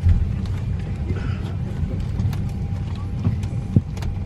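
Cabin noise inside a Boeing 737-900 airliner: a steady low rumble with a faint steady hum, broken by a few sharp clicks and knocks, one louder knock near the end.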